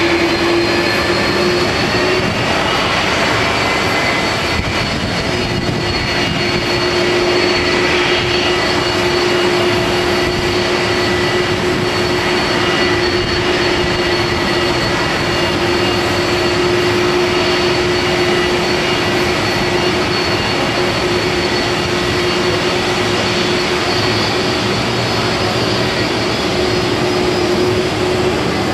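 Airliner jet engines running steadily at taxi power: a continuous rushing noise with a steady high whine and a lower hum.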